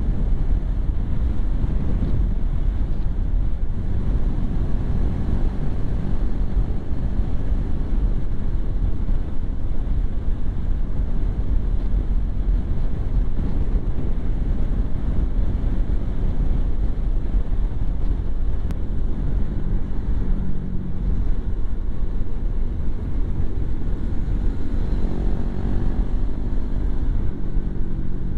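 Strong wind buffeting the microphone of a motorcycle rider at speed: a steady low rumble, with the motorcycle's running and road noise under it.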